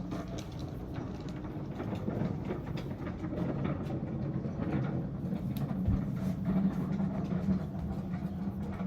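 Steady low rumble of a distant engine.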